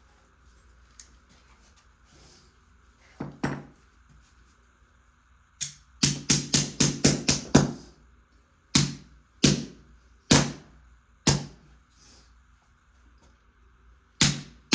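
Hammer driving carpet tacks into the floor with sharp metal blows: one blow, then a quick run of about nine at roughly five a second, then slower single blows about a second apart. The tacks are being knocked over rather than going in straight.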